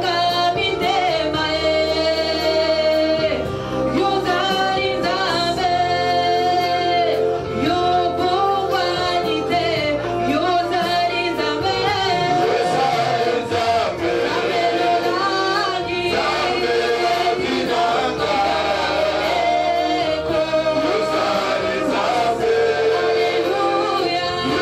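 Gospel worship singing: a man leads at the microphone with women's voices singing along, over long held accompaniment chords.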